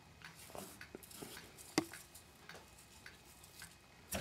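Faint clicks and rustles of a netting needle, twine and mesh gauge being handled while cast-net knots are tied, with one sharp click a little under two seconds in.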